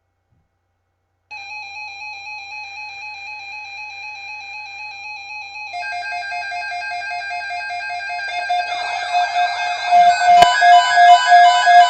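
Electronic instrumental music with keyboard and plucked-string sounds. It starts about a second in and builds in layers, getting louder, into a pulsing rhythm near the end, with one sharp hit shortly before the end.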